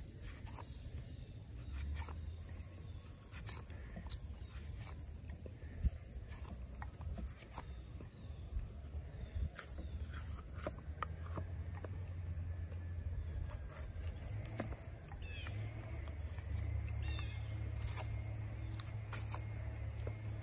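Steady, high-pitched chorus of insects such as crickets. Scattered light clicks and knocks are heard over it, with one sharper knock about six seconds in, and a low rumble comes and goes.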